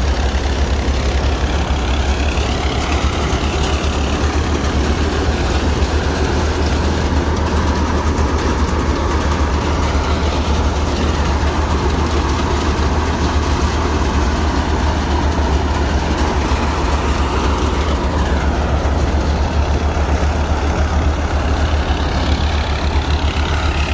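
Tractor-driven wheat thresher running steadily under load, fed by hand. A 1998 Massey Ferguson 240's three-cylinder diesel gives a constant low drone, with the thresher's drum and fan noise over it.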